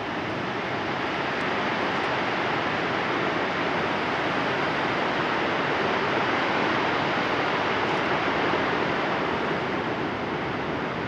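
Steady roar of a large waterfall on the Yellowstone River, swelling slightly through the middle.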